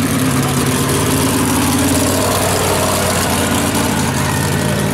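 Off-road vehicle's engine running loud and steady.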